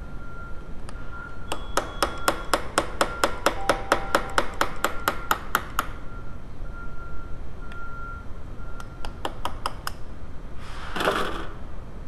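Hammer tapping a punch against the roll pin in a distributor shaft: a run of about twenty quick, ringing metallic taps, then a short pause and a few more. A brief rustling noise comes near the end.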